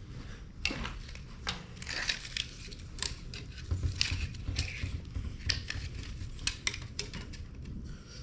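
Irregular metallic clinks and clatter of tools and brake parts being handled, over a low steady rumble.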